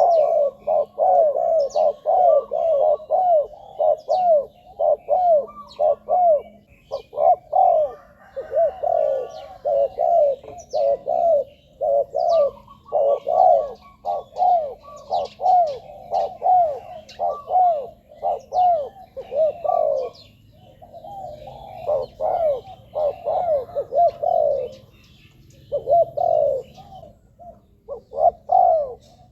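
Spotted dove cooing over and over in quick runs of arched notes, about two a second, with brief pauses near the end; faint high chirps of other small birds sound above it.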